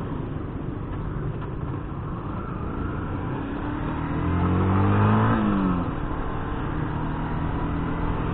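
Motorcycle riding sound: a steady rush of wind and road noise under an engine. The engine climbs in pitch from about three and a half seconds in, peaks just after five seconds, then drops back to a steady tone.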